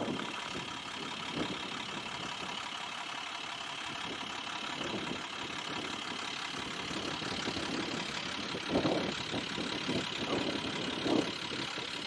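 Forest fire truck's engine idling steadily, with a few louder irregular sounds near the end.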